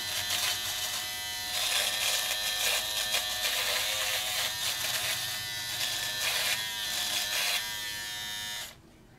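Philips Norelco MG9000 trimmer running with its body-trimmer head and no skin guard, buzzing steadily as it is worked over stubble along the jaw and neck. The buzz swells and fades with the strokes. It cuts off suddenly near the end as the trimmer is switched off.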